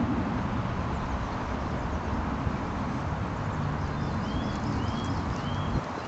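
15-inch gauge miniature railway train running, a steady low rumble. A bird gives a few short arched chirps about two thirds of the way through.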